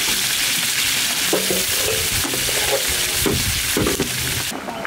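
Fish heads sizzling as they fry in hot oil in a large cooking pot: a steady, dense hiss that cuts off abruptly near the end.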